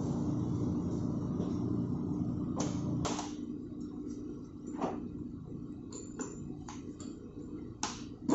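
Steady low machinery hum that drops away about three seconds in, with a run of sharp metallic knocks and clicks as the steel end fittings of a high-pressure fuel oil pipe are handled against a steel block; the sharpest knock comes at the very end.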